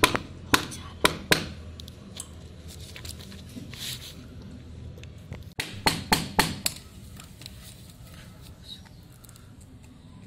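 Sharp knocks of a hand tool striking the plastic case of an HP laptop adapter along its seam, to break the screwless case open. There are four quick strikes in the first second and a half, then another cluster of about five around six seconds in.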